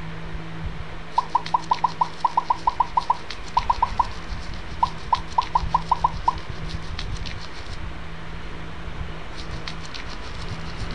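Cartoon bubble-pop sound effects: quick runs of short, same-pitched pops, about six a second, in several bursts during the first half, as soap foam builds up. Light crackling and a steady hiss run underneath.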